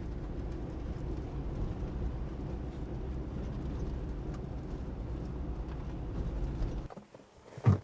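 A vehicle engine idling steadily, then switched off about seven seconds in, followed shortly by a door shutting with a single thud.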